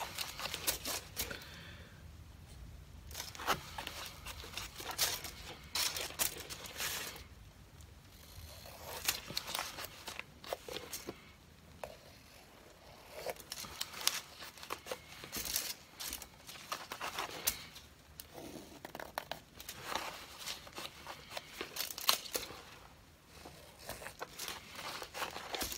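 Crinkling and rustling from hands in disposable plastic gloves handling a paper towel, with small scrapes, in irregular bursts separated by short pauses.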